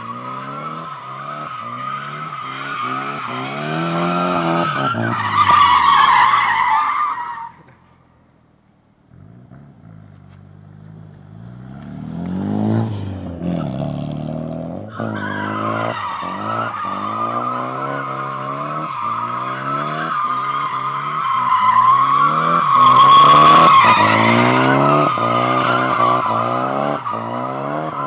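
Nissan S14 drifting: the engine revs hard, its pitch swinging up and down again and again, over a steady high tyre squeal. Both cut out about seven to eight seconds in. The engine picks up again a few seconds later, and the squeal returns about fifteen seconds in, loudest around twenty-three seconds in.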